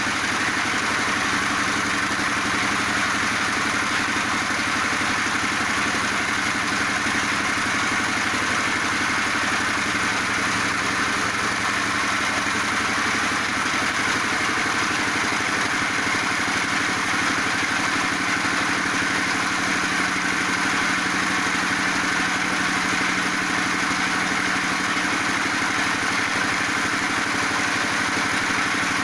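Feed pellet machine running steadily, its motor or engine holding an even, unchanging pitch.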